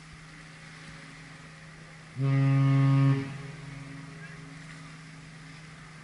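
Cruise ship horn sounding one deep blast about a second long, a little over two seconds in, as part of a horn exchange between ships. Beneath it is a steady low hum.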